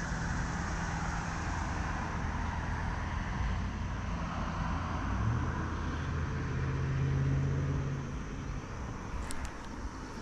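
A motor vehicle's engine hums steadily, grows louder to a peak about seven seconds in, then fades as it passes. A few faint clicks come near the end.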